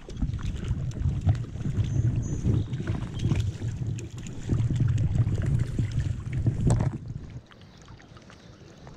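Wind buffeting the microphone with light splashing of stream water. The rumble drops away about seven and a half seconds in.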